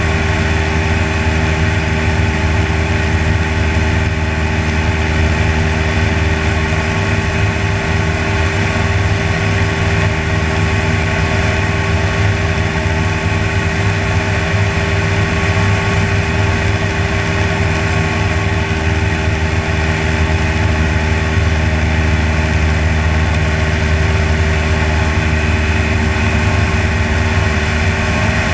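A propeller aircraft's engine and propeller droning steadily at cruise power, with no change in pitch or level.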